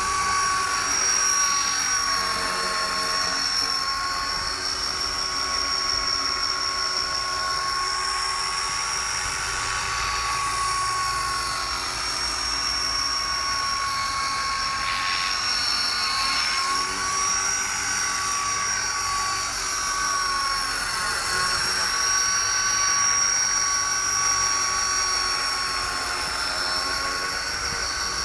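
Copter X 250 electric RC helicopter flying: its motor, gears and rotor blades make a steady high-pitched whine, the tone wavering slightly as the helicopter moves about.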